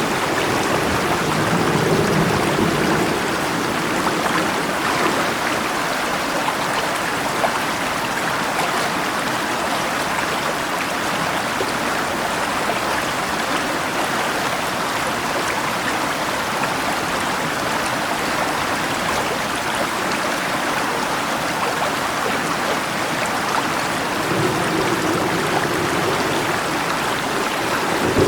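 River water flowing steadily in a continuous rushing wash, with a low rumble swelling near the start and again near the end.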